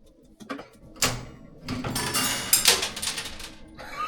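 A sharp knock about a second in, followed by about two seconds of dense, rattling noise.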